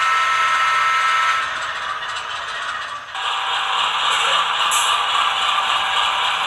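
ESU LokSound decoder's GE diesel prime-mover idle sound playing through an HO-scale locomotive's small speaker: thin and rattly, with no bass. The sound steps up to a louder, fuller rumble about three seconds in.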